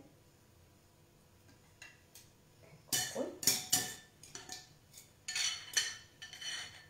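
A metal utensil clinking and scraping against a ceramic bowl and plate. It is quiet at first, then a run of irregular clinks starts about three seconds in.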